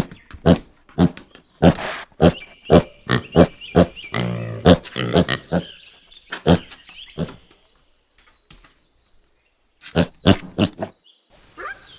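Piglet calling in a rapid series of short grunts and squeals. The calls break off for a couple of seconds and a few more follow near the end.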